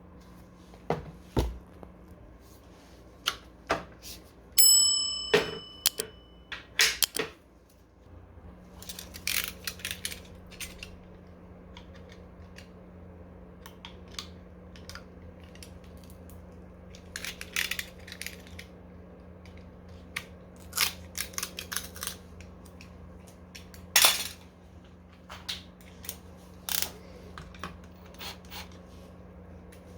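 Metal tools and scooter parts being handled on a workbench: scattered clicks and knocks, with one ringing metallic clink about four and a half seconds in, over a steady electrical hum.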